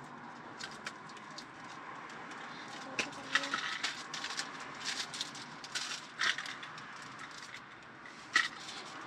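Handling noise from small items being moved and sorted in a storage compartment: scattered clicks, knocks and rustles at an uneven pace, with one sharp knock near the end.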